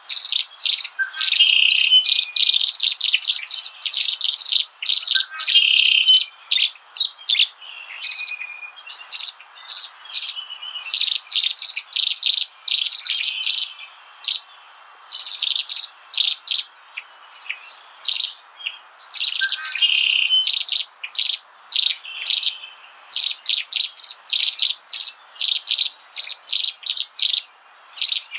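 Small birds chirping rapidly and almost without pause, many quick high notes running together with a short twittering phrase recurring every few seconds.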